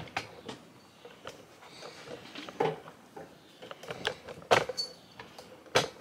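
Scattered clicks and knocks of handling as a laptop power cord is laid across the desk and its plug fitted into the side of the laptop. A sharp knock past the middle is the loudest, with another near the end.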